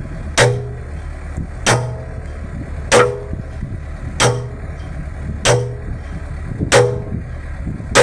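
Hammer striking steel in a steady rhythm, about one blow every 1.3 seconds, seven blows, each ringing briefly with a metallic tone. A steady low hum runs underneath.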